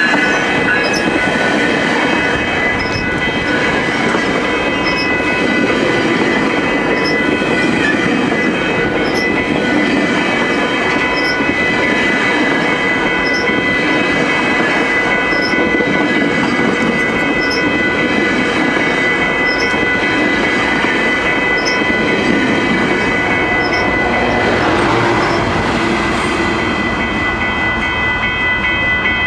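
GO Transit bilevel passenger coaches rolling past at close range: a loud, steady rumble of wheels on the rails, with a high, steady squeal of wheels held over it.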